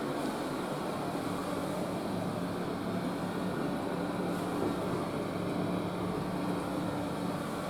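A steady mechanical whirring hum with a hiss, joined by a low steady drone about two seconds in.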